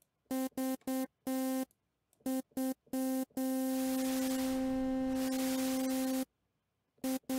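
Arturia Pigments analog-engine synth playing one pitch: several groups of short staccato stabs, then a held note of about three seconds, with a layer of noise hiss above the tone. During the held note the noise colour is swept between red, white and blue, so the hiss shifts between darker and brighter.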